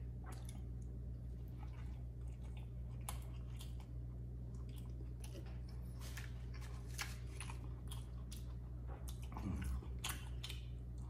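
Close-miked chewing of a mouthful of burger (soft bun, patty, onions): wet mouth clicks and smacks at irregular intervals, with a louder bite about nine and a half seconds in.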